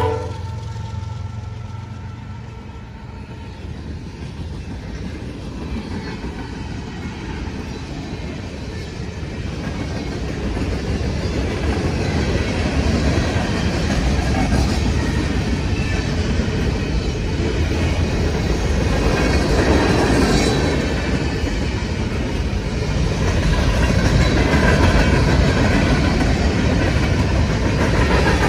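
Freight train rolling past close by: the locomotives clear at the start, then a long string of covered hoppers and boxcars clatters over the rails. The rumble grows louder over the first dozen seconds and then holds steady.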